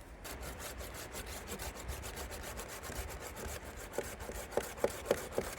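Hand saw cutting through a wooden branch in quick, even back-and-forth strokes, with a few short squeaks from the wood near the end.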